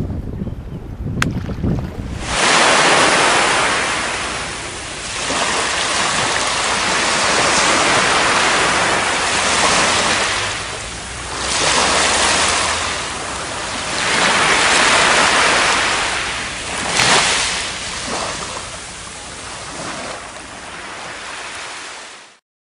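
Sea water washing and splashing, swelling and easing every few seconds, with wind on the microphone; it starts suddenly and cuts off abruptly near the end.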